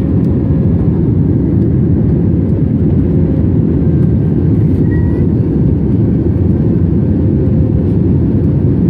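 Airliner engine and airflow noise after takeoff: a steady, loud low rumble with a faint steady hum above it.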